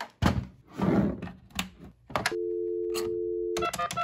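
AT&T VideoPhone 2500 being handled with a few knocks and clatters, then its steady two-tone dial tone for just over a second. The dial tone cuts off as touch-tone keypad beeps start near the end.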